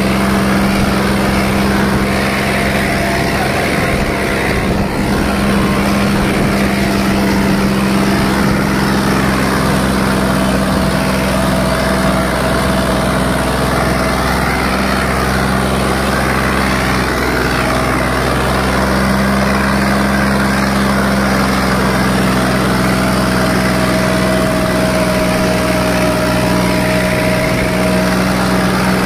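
John Deere 5210 tractor's three-cylinder diesel engine running steadily under heavy load, pulling a disc harrow through tilled soil.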